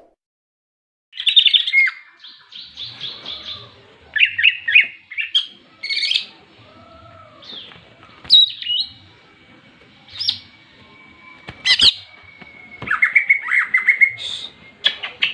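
Cucak ijo (green leafbird) singing its fierce fighting song, starting about a second in: bursts of rapid chattering notes broken by shrill high calls.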